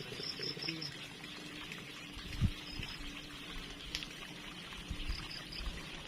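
Water trickling steadily, with insects chirping in short repeated runs of high pulses and a dull thump about two and a half seconds in.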